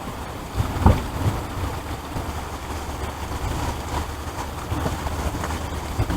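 Heavy rain pouring down, with a steady low rumble under it and a single knock about a second in.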